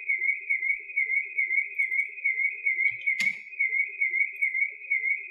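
Siren sound effect: a steady high warbling tone that wavers rapidly up and down, with one click about three seconds in.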